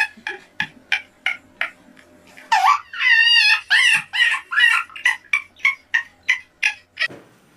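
A girl laughing hard in quick breathy bursts, about three a second, breaking into a high squealing laugh about three seconds in, then trailing off near the end.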